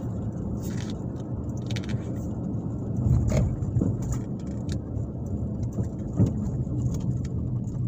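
Car cabin sound while driving: a steady low engine and road rumble, with a few light clicks or rattles.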